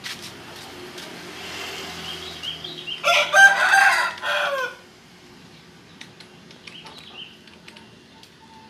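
A rooster crowing once, about three seconds in: one loud call of nearly two seconds that drops in pitch at the end.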